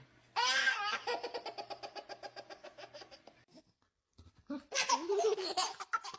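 A baby laughing: a long run of quick giggles that fades out over about three seconds, then a second burst of laughter near the end.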